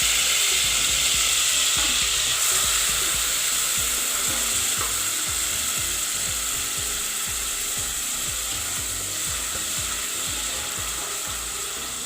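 Tomatoes frying in hot coconut oil in a pan, a steady sizzle that slowly dies down as the tomato juices cool the oil.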